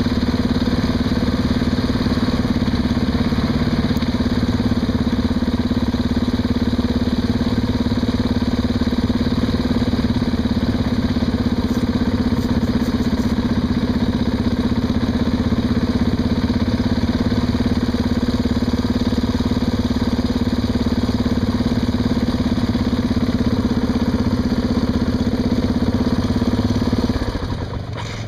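Yamaha Grizzly ATV engine held at steady high revs under load while the quad is stuck nose-down in a mud hole; the revs drop off near the end.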